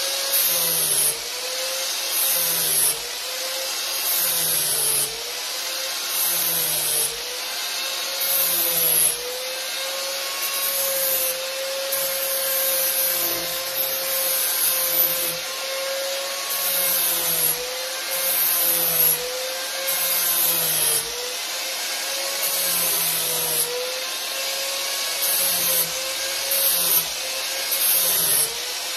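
Angle grinder with a flap wheel sanding a wooden axe handle, taking the handle end down to fit an axe head. The motor's whine sags in pitch each time the disc bears on the wood, with a scratchy sanding rasp in repeated passes every second or two.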